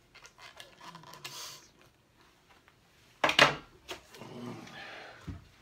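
Diving mask and snorkel being handled: rubbing and small clicks of the rubber strap and plastic. About three seconds in there is a loud, short burst of noise, followed by a rougher rustle as the mask comes off over the head.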